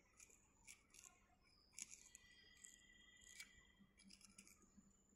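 Near silence with faint, irregular light clicks and scrapes: a metal rod worked in the holes of a straight pipe pattern to loosen it from the sand mould.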